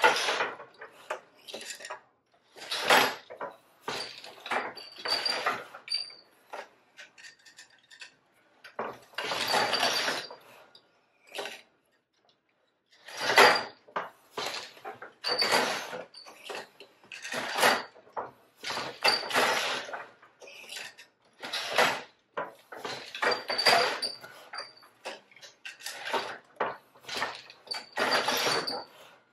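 Wooden floor loom clattering through repeated weaving strokes: the beater swings against the cloth and the loom's parts knock and rattle, with a stroke every second or two.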